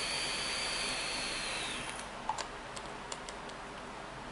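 Vape being drawn on: a steady airflow hiss with a high whistle through the dripper atomiser as the coil fires, ending about two seconds in. A few faint crackles and clicks follow.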